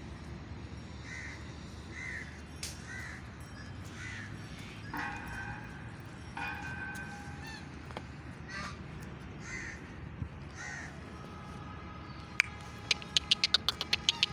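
Crows cawing repeatedly, short calls about a second apart, over a steady low background rumble, with two longer held tones around the middle. In the last two seconds there is a fast run of sharp clicks, louder than the caws.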